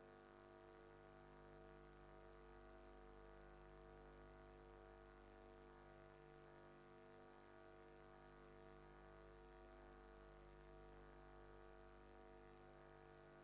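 Near silence: a faint, steady electrical hum with a thin high-pitched whine, unchanging throughout.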